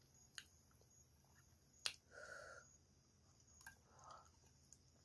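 Faint eating sounds: a few sharp clicks, the loudest about two seconds in.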